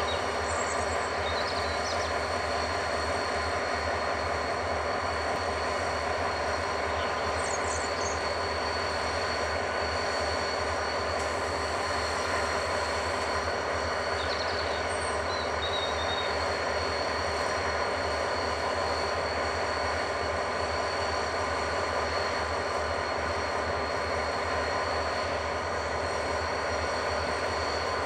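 Renfe class 333.3 diesel locomotives idling while stood in double traction: a steady engine throb with a constant hum that does not change. A few brief, faint high chirps come over it.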